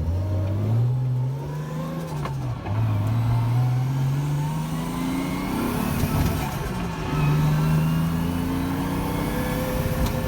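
Turbocharged 1JZ inline-six in a Mazda RX-7 pulling hard under load. The engine note climbs, falls back about two seconds and about six seconds in, then climbs again. It is breaking up around 4,500 rpm, a misfire that the owner suspects may come from overboost.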